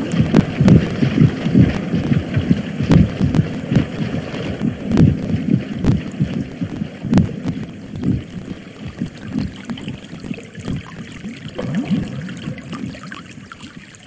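Radio-drama sound effect of low, irregular thuds and churning that gradually fade away.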